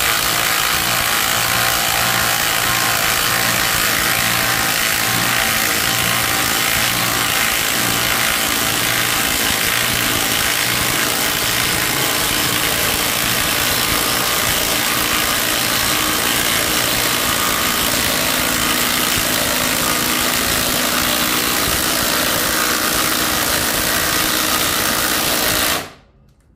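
Two Ryobi P-260 and P-261 half-inch cordless impact wrenches hammering together as they drive 6-inch lag screws into a wooden beam, a steady loud rattle that stops abruptly about a second before the end when the screws are driven home.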